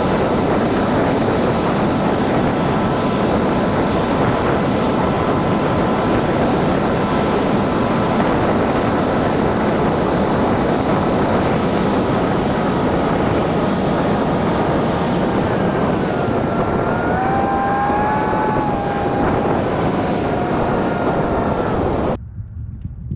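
Boat running across open water at speed: a steady motor drone under heavy wind buffeting on the microphone, with a faint steady whine. About 16 s in a few pitched tones slide up and settle, and about 22 s in the roar drops off abruptly to a much quieter sound.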